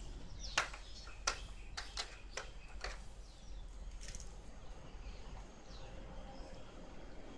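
About six sharp clicks or knocks in the first three seconds, the loudest about half a second and just over a second in, over a steady outdoor background with faint bird chirps.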